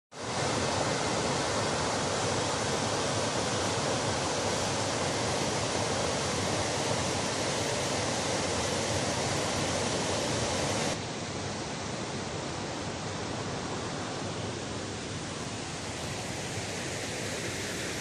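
Waterfall rushing: a steady, even roar of falling water that drops a step quieter about eleven seconds in.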